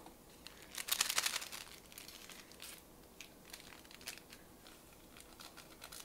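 Crinkly packaging rustling and crackling as sweetener is added to the dough, with a burst of crinkling about a second in, then lighter scattered rustles and clicks.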